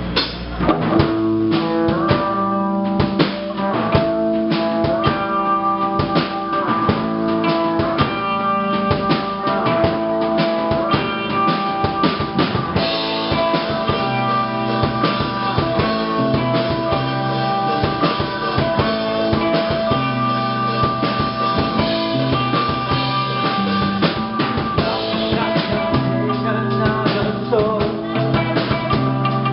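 Live rock band playing: electric guitars, bass and a drum kit with bass drum and rimshots, an instrumental section with no vocals.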